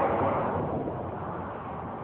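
Steady road and wind noise inside a moving car, with the tail of a train's pitched sound fading out in the first half-second.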